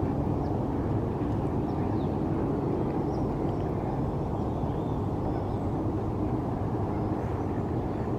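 Steady low rumble of distant city background noise, with a few faint short bird chirps above it.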